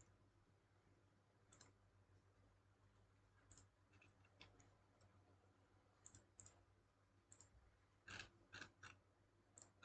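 Faint computer mouse clicks, scattered and irregular, with a quick run of three near the end, over a low steady hum.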